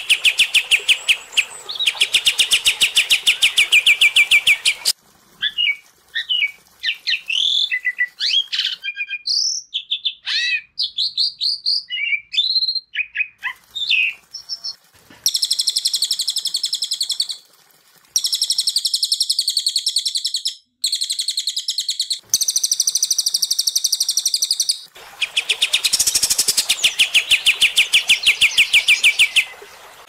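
Songbirds (cililin, kapas tembak and Asian pied starling) singing in turn. First a fast trill of rapidly repeated notes, then a stretch of varied whistled notes and slurs, then harsh chattering bursts about two seconds long with short gaps, and the fast trill again near the end.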